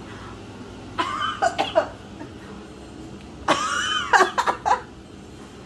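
A woman coughing and gagging in two bouts, the second longer and more strained, her mouth burning from a taste of fiery sambal roa chili paste.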